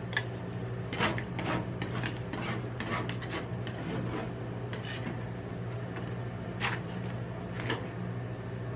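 Metal spatulas scraping, chopping and smearing ice cream mixed with crushed Pringles across a frozen stainless steel cold plate: irregular scrapes with sharp metal clicks, over a steady low hum.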